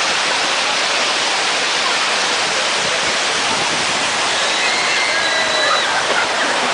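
Waterfall: a steady, loud rush of falling water with no change in level.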